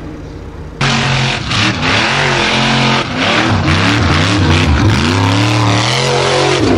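Formula offroad buggy's engine revving up and down in repeated rising and falling sweeps while climbing a steep dirt hill. It comes in suddenly louder about a second in.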